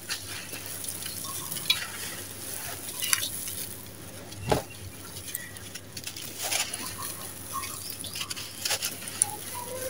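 Dry sand-cement chunks with small stones crushed and crumbled by hand: gritty crunching and crackling, with grit and pebbles pattering down, and one sharper crack about four and a half seconds in.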